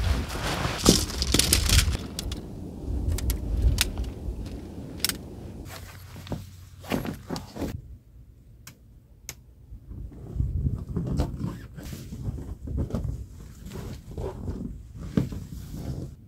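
Tent fabric rustling and flapping as a dome tent is pitched, with scattered sharp clicks and knocks from the poles and fittings being handled. Wind buffets the microphone for the first two seconds.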